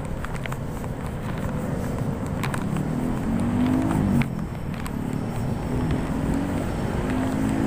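Street traffic: motor vehicle engines running along the road, with one engine hum rising and falling in pitch and peaking about four seconds in, over a steady low rumble.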